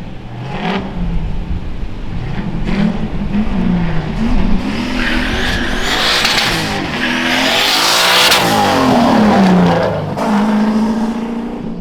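A car engine revs up and down several times, then climbs to high revs with a loud hiss of tyre squeal for a few seconds in the middle before dropping back to a steady run.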